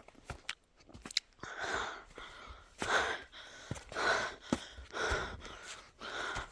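A person breathing hard, with loud noisy breaths about once a second.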